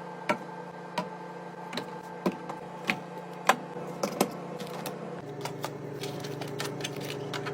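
Irregular clicks and taps of containers and packages being handled and set down while restocking a fridge, over a steady low hum that changes about five seconds in.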